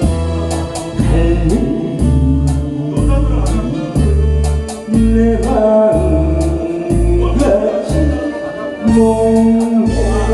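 Korean trot song: a voice singing over a backing track with a steady, evenly pulsing bass beat and regular cymbal ticks.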